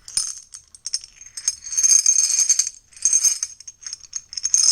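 Small metal parts of a seat belt retractor rattling and jingling as they are handled and shaken during disassembly, in irregular bursts.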